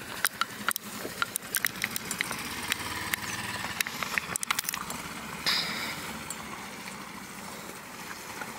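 Rope being handled on a sailboat deck as tow lines are paid out over the side: a run of light clicks and knocks, with a louder brief rustle about five and a half seconds in, over a low steady background.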